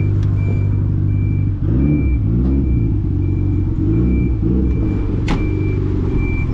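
A vehicle engine idling and revved in quick blips, with a high electronic beep repeating about twice a second. A car door shuts about five seconds in.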